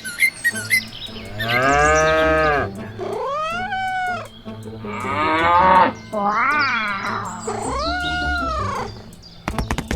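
A series of about five drawn-out animal calls, each about a second long and rising then falling in pitch, over a steady low hum.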